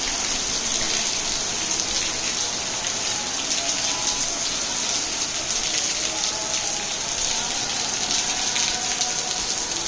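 Steady rain falling on wet, puddled stone paving: an even hiss of countless drops splashing.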